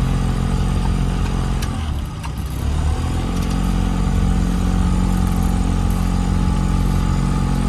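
Pontoon boat's outboard motor running steadily, dropping briefly in pitch and level about two seconds in, then picking back up.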